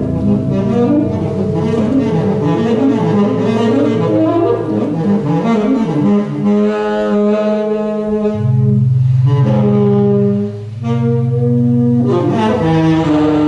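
Live improvised experimental music of layered, sustained pitched tones. The notes are busy and shifting at first, then settle into long held notes over a low drone from about eight seconds in, with a brief drop near the end.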